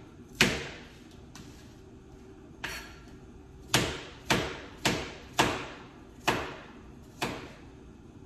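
Kitchen knife chopping on a cutting board: about eight separate sharp chops at uneven intervals, most of them coming in a quick run in the second half.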